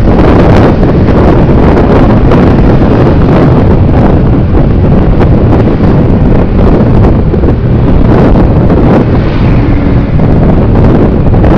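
Loud, steady wind buffeting the microphone of a camera mounted on a moving vehicle, with road noise underneath.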